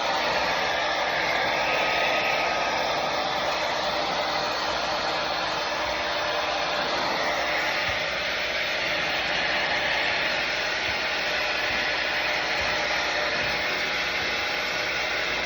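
Handheld hair dryer running steadily, a continuous rush of air that swells and eases a couple of times.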